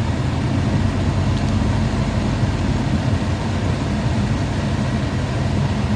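Nissan Skyline GT-R (BNR32), its RB26DETT twin-turbo straight-six running with a steady low rumble and the odd noise that turned out to come from the air-conditioning system.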